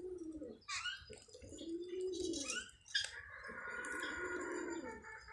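Sparrows chirping in short high calls, over low cooing calls about a second long that repeat roughly every two seconds.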